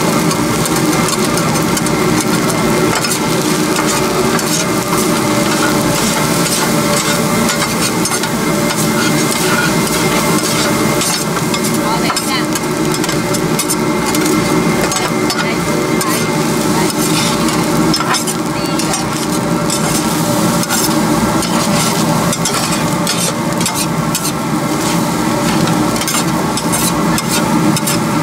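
A large batch of pork fried rice being stir-fried in a wok. A metal spatula scrapes and clatters against the wok in quick, continuous clicks over steady sizzling.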